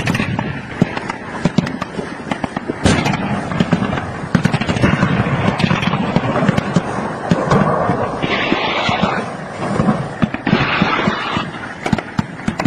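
Scattered gunfire: many sharp, irregular shots, with one louder shot a little under three seconds in.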